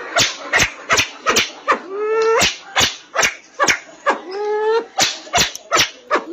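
Pheasant-family bird calls: a rapid series of sharp clicks mixed with short rising calls, several a second.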